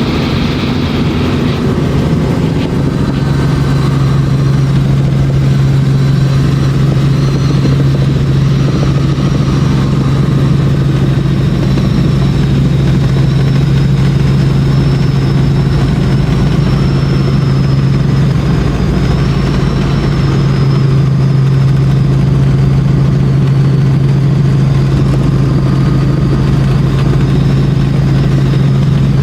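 Helicopter in flight heard from aboard: a loud, steady engine and rotor drone with a faint high whine that wavers slightly.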